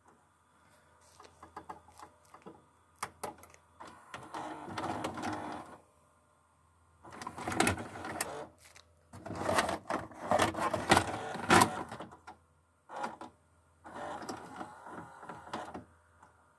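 LG AF290W VHS video recorder's cassette mechanism at work: light clicks, then several runs of motor whirring and clattering gears, loudest around the middle, with a single knock near the end, as the cassette is moved through the loading slot.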